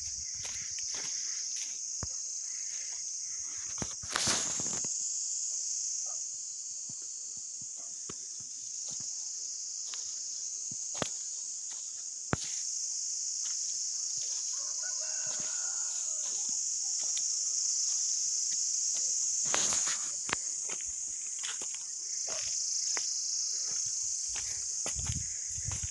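A steady high-pitched insect chorus over the whole stretch, with scattered clicks and knocks from footsteps and two louder rustling bursts about four and twenty seconds in. A faint distant rooster crows once in the middle.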